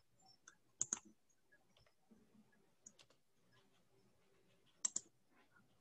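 Faint computer mouse clicks: a quick sharp pair about a second in, a fainter pair around the middle, and another sharp pair near the end.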